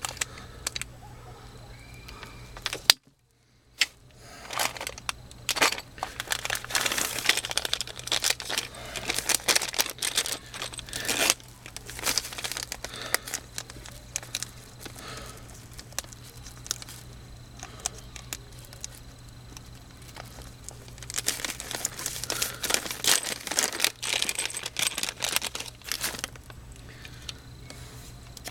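Crinkling and rustling of material being handled or crawled over, busiest in two long stretches, over a steady low hum.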